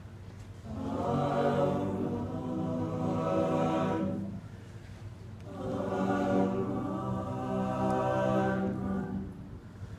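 All-male a cappella group singing together with no instruments, in two long phrases with a short break about halfway through.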